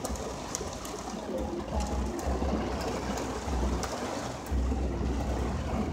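Rain and road noise inside a moving car's cabin during a heavy downpour: an even hiss with low rumbling that comes and goes, and a few light taps.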